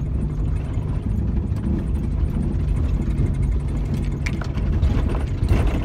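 Jeep engine and drivetrain rumbling low and steady, heard from inside the cab as it drives slowly over a snowy dirt trail. A few brief knocks and rattles come near the end.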